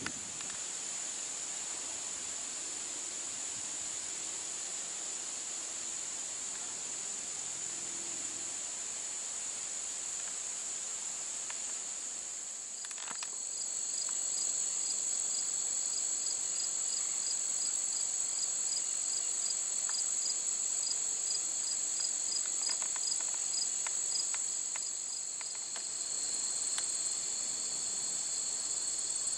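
Crickets and other insects singing in a steady, high-pitched chorus. About halfway through a second insect joins with a regular chirp, about two to three a second, which near the end turns into a steady trill.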